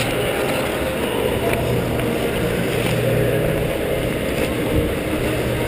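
Ice skates gliding over rink ice, a steady low rumbling rush picked up close by a camera carried low by a moving skater.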